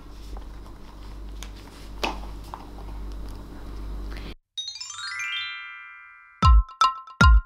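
Faint handling noise over a low steady hum for the first four seconds, with one click about two seconds in. Then a quick run of chime notes stepping down in pitch, each note ringing on, leads into an electronic intro jingle with strong, evenly spaced bass-heavy beats near the end.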